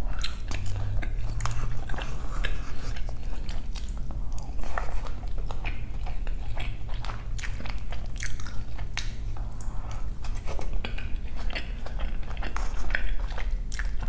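A person chewing and biting food close to the microphone: a continuous run of irregular wet mouth clicks and small crunches.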